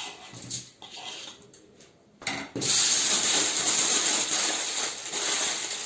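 Light clicks and rustling, then after a short pause a loud, steady sizzle of hot fat and chicken drippings in the skillet starts suddenly and keeps going.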